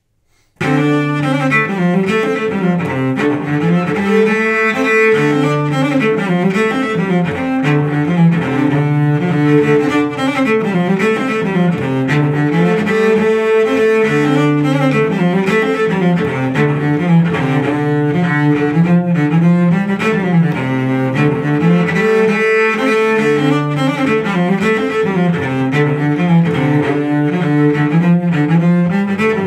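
Solo cello bowing a traditional old-time fiddle tune in D minor. It begins about half a second in.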